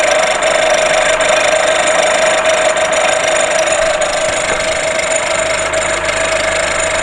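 VW Golf VI 1.4 TSI (CAXA) petrol engine idling with a nasty metallic clatter and a steady whine. The mechanic thinks the high-pressure fuel pump is making the noise.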